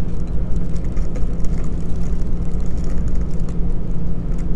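Steady low machine hum with a constant pitch, and faint light crinkles of a plastic plant sleeve as a potted orchid is handled.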